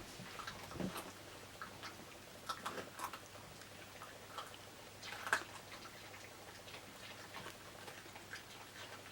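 Dogs (Border Terriers) chewing vegetables: irregular small crunches and clicks, the sharpest about five seconds in.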